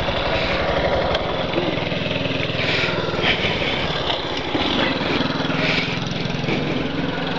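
Yamaha Factor 150's single-cylinder engine idling steadily close by, with an even, fast pulse.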